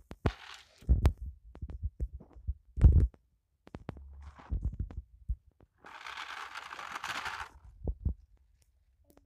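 Scattered low thumps of wind and handling on a handheld phone microphone. About six seconds in comes a steady rolling hiss of about a second and a half, as a kick scooter's small wheels run over asphalt close by.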